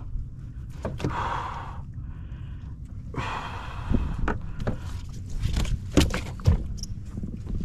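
Two hard, breathy exhalations, then a run of sharp knocks and thumps against a kayak as a hooked red drum is brought aboard.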